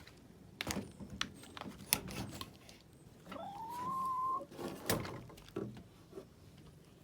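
Chickens pecking at the camera, a series of sharp irregular taps. About three seconds in, a hen gives one drawn-out call that rises and then holds its pitch.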